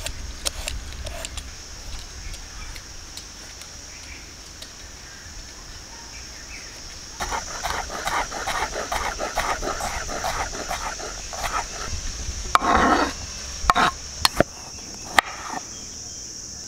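Hand peeler scraping the rind off a bottle gourd, then a kitchen knife chopping ginger on a wooden cutting board with a few sharp taps, over a steady high insect chirr. A louder, busier stretch of sound starts about seven seconds in and peaks in a short loud burst a little before the chopping taps.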